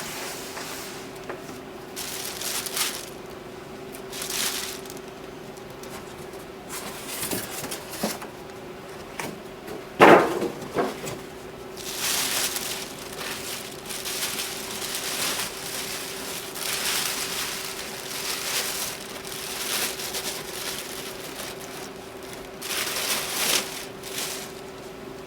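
Packing being handled: bursts of crinkling and rustling from a printer's plastic bag and styrofoam packing as it is worked out of its cardboard box, with one loud thump about ten seconds in. A steady low hum runs underneath.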